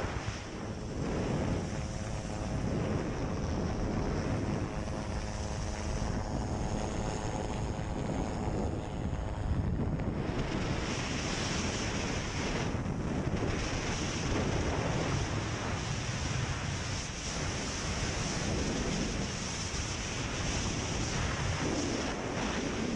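Steady, dense rush of a hovering rescue helicopter's rotor and engines, mixed with strong wind buffeting the microphone. A faint hum of several tones runs through it for the first ten seconds or so.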